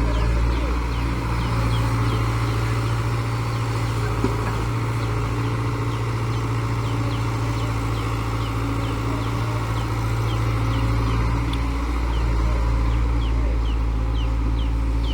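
Diesel engine of an earthmoving machine running steadily, with short high falling chirps repeating about once or twice a second over it.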